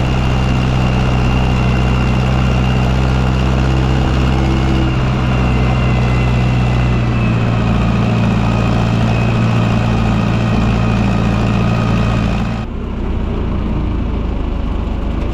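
Zetor tractor's diesel engine running steadily at an even, low speed, with a thin high whine above the engine note. About twelve and a half seconds in, the sound changes abruptly to a different, duller engine note.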